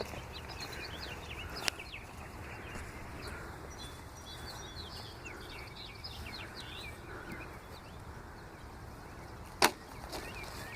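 Outdoor background of small birds chirping over a steady low rumble, with a small sharp knock about 1.7 s in and a louder one near the end.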